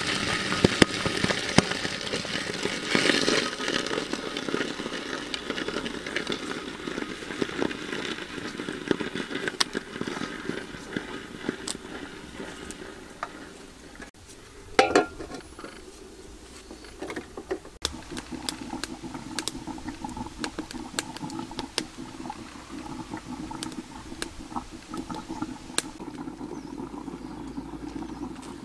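Water heating and bubbling in a wok with pork belly over a wood-fired clay stove, with scattered sharp clicks throughout. About halfway through comes a brief louder burst.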